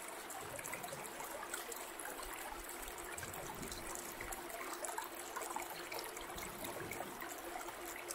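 Water trickling and babbling steadily, like a small stream running over stones.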